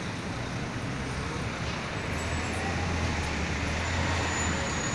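City street traffic: a steady background of vehicle noise, with a low engine rumble that swells about two seconds in and eases off near the end.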